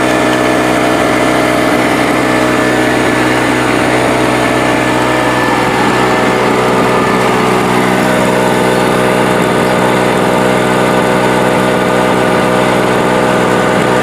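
Small Harbor Freight gasoline generator running steadily under the light load of a plugged-in fan, an even engine drone holding one pitch, having started after about a year in storage.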